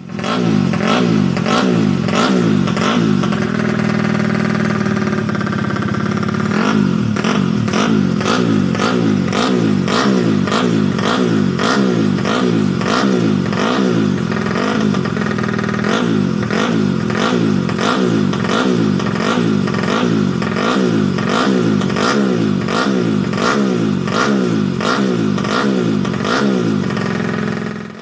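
Yamaha Jupiter Z underbone's four-stroke single-cylinder engine, bored to 130cc for road racing, revved hard on the stand. It rises and falls in quick throttle blips, about two a second, with a steadier stretch around four to six seconds in, and cuts off suddenly at the end.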